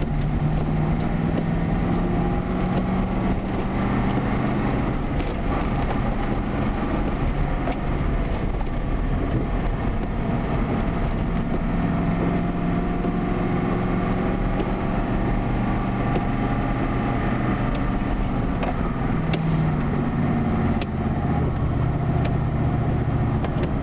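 Truck engine running under load while driving, heard from inside the cab, its pitch drifting slowly up and down with engine speed, during the changeover from gasoline to wood gas. A few light clicks from the dashboard fuel switch and lever.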